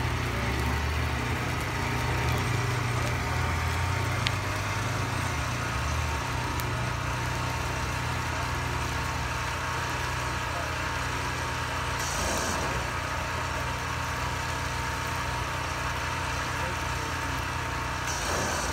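An engine running at a steady idle, with two brief hisses, one about two-thirds of the way through and one near the end.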